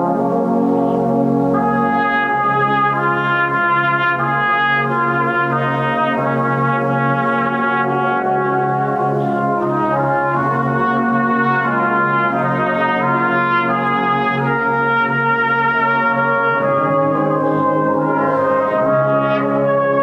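Brass band playing a slow piece in sustained, full chords that change every second or two.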